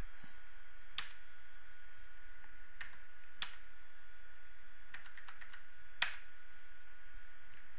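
A handful of sharp, irregularly spaced computer mouse clicks over a faint steady hiss and a thin high hum. The clearest clicks come about a second in, around three and a half seconds, and at six seconds.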